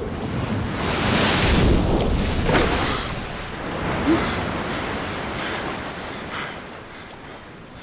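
Breaking ocean surf: a wave crashes and whitewater rushes, swelling about a second in, surging again a few times, then fading toward the end.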